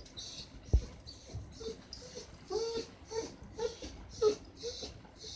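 A tabby kitten licking its paw while washing its face, wet licks repeating about two to three times a second. Between about two and a half and four and a half seconds in, a dog whimpers in short high whines, and there is a single soft bump about a second in.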